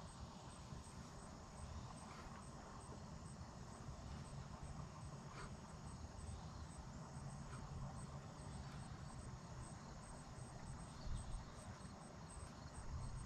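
An insect chirping steadily in short, evenly spaced high pulses, about two to three a second, over a faint low rumble, with a couple of soft knocks near the end.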